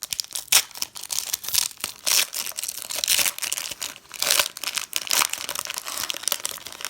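A Pokémon card booster pack's wrapper crinkling and tearing as it is ripped open by hand, in an irregular run of crackles that stops near the end.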